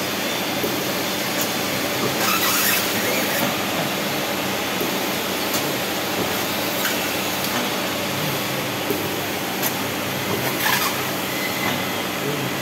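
Pneumatic stainless-steel cheese cutting machine at work: a steady mechanical noise with a faint hum and scattered short clicks. Two brief hisses come through, about two seconds in and again near the end.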